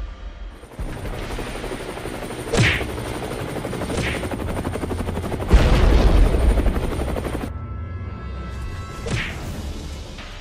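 Dubbed-in battle sound effects: sharp gunfire-like cracks and booms over a rushing noise, with the loudest, deepest boom about halfway through and one more crack near the end.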